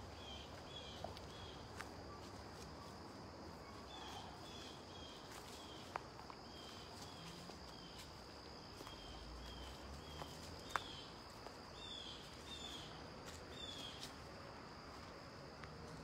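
Insects trilling steadily in a woodland, with a short chirping call repeated in runs of three or four. A few sharp snaps of footsteps on the leaf-littered path, the loudest about eleven seconds in.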